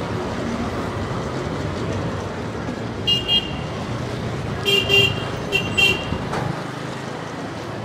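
Steady road-traffic noise with vehicle horns honking: three short toots between about three and six seconds in.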